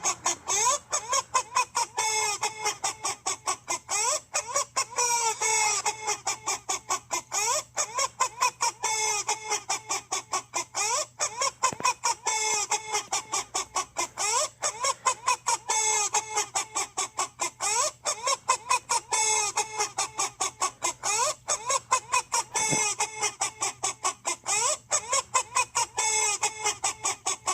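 A novelty song made of chicken clucks: short pitched clucks repeat several times a second in a fast, even rhythm throughout.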